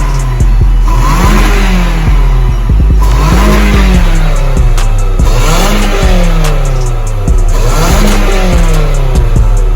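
Background music with a heavy, steady bass and a swooping sound that rises and falls about every two seconds, like a revving engine.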